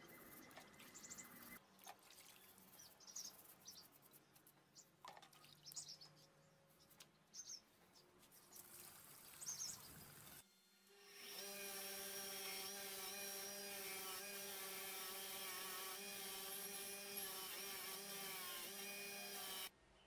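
Faint sloshing of a rusty hammer head being scrubbed by hand in a bucket of water, with scattered bird chirps. About halfway there is a cut, then a power tool's motor runs steadily and much louder, and stops suddenly just before the end.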